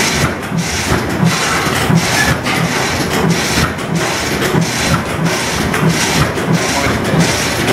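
20 HP Reid single-cylinder stationary oilfield engine with twin flywheels running, with a steady, even beat of about two to three a second.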